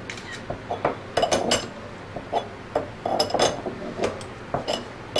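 Hand wrench working a fixture bolt on a scroll pump's bearing assembly: irregular metal clicks and clinks in short clusters as the bolt is turned to press the bearing back into its seat.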